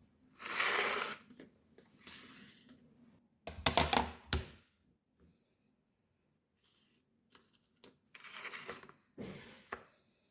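Intermittent bursts of rustling and scraping, with a quick run of clattering knocks about halfway through, typical of ingredients and utensils being handled during food preparation.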